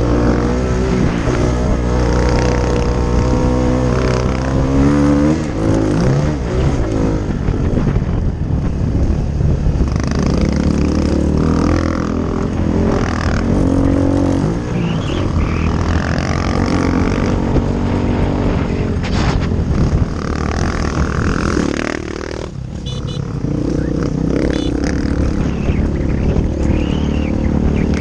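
Honda XR250L's single-cylinder four-stroke engine revving up and down as the dirt bike is ridden hard over a motocross track, easing off briefly about three-quarters of the way through.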